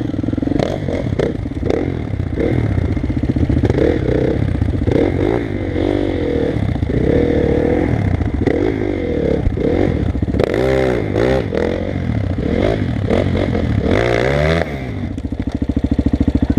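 KTM enduro motorcycle engine running, revved up and down over and over in short blips as the bike is ridden slowly over rocks and mud, with knocks and rattles of the bike over the rough ground.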